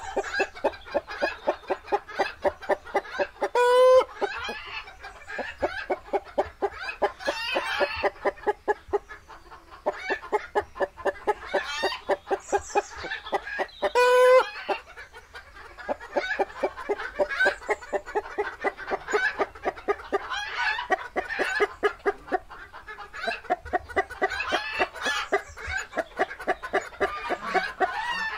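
Chickens clucking rapidly and continuously, with two brief, louder squawking calls, one about four seconds in and one about fourteen seconds in.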